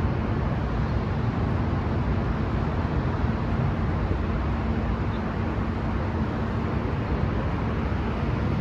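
Steady road traffic noise with a low engine hum underneath, even in level throughout.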